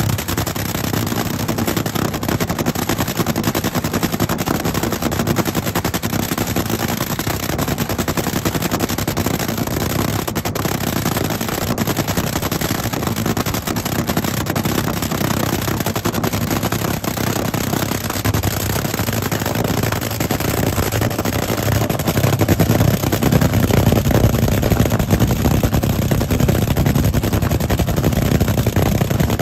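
A dragster's engine idling through open exhaust headers, with a fast, continuous staccato crackle. It gets louder about three-quarters of the way through.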